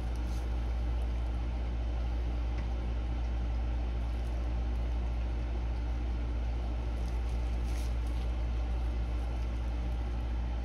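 A steady low hum that holds level throughout, with no separate knocks or changes.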